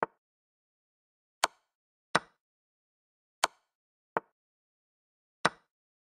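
Chess-program piece-move sound effects: six short, sharp clicks, one for each move as pieces are placed on the board, some crisper and brighter than others.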